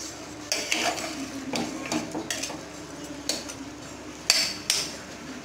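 Metal spoon scraping and clinking against the inside of a pressure cooker while raw chicken pieces are stirred, in irregular strokes, with the sharpest knocks about four seconds in.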